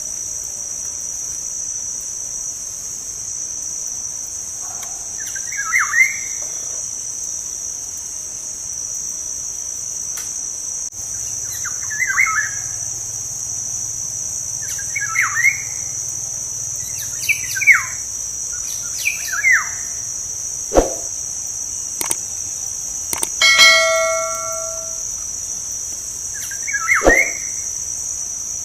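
Black-naped oriole (kepodang) calling: about six short calls that drop in pitch, spaced a few seconds apart, over a steady high drone of insects. A brief ringing note with several steady pitches comes about two-thirds through.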